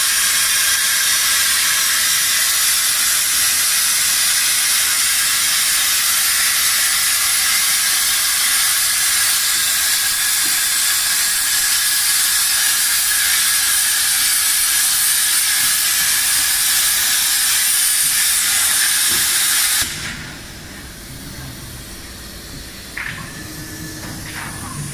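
CNC plasma cutting torch on a 200 A plasma power supply cutting metal plate: a loud, steady, high hiss from the plasma arc that cuts off suddenly about twenty seconds in as the arc goes out at the end of the cut, leaving only a quieter low background.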